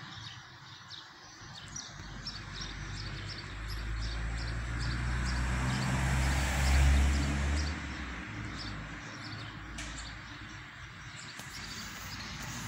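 Outdoor ambience of small birds chirping again and again, while a vehicle passes, swelling to its loudest about seven seconds in and then fading.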